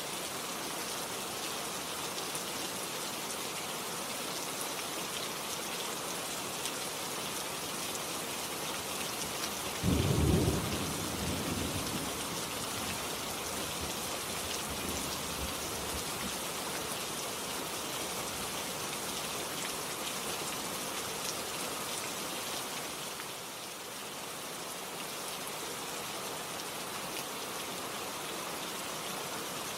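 Steady rain falling, with a sudden low rumble of thunder about ten seconds in that dies away over a couple of seconds.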